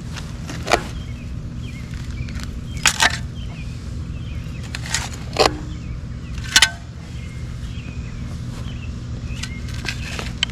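A spade chopping into turf and soil, about six sharp strikes spaced a second or two apart, over a steady low hum.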